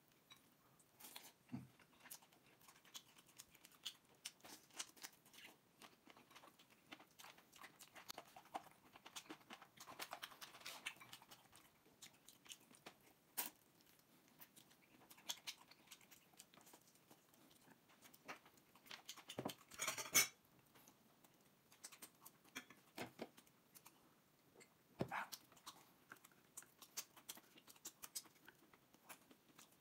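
Faint close eating sounds: a person chewing pork ribs stewed with sauerkraut, with small clicks of chopsticks on dishes. A few louder sharp knocks come through, the loudest about two-thirds of the way through.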